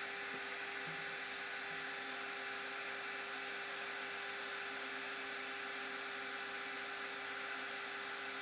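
Metal lathe running steadily while turning a shaft down close to finished size: a steady machine whine over an even hiss.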